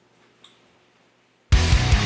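Near quiet with a faint click about half a second in, then loud rock music with guitar and a steady heavy drum beat starts abruptly about one and a half seconds in.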